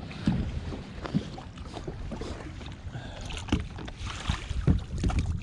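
Scattered knocks and thumps on a fishing boat as a just-netted fish is handled in the net, over steady wind and water noise.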